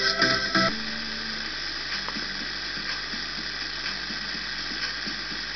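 Blaupunkt Orlando car radio on FM: the music playing cuts off abruptly less than a second in as the set is retuned to 88.50 MHz. What follows is steady static hiss with faint crackle, the noise of a weak, distant signal received through tropospheric propagation.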